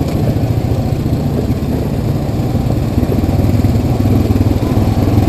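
ATV engine running steadily at low, even speed while riding a rocky dirt trail.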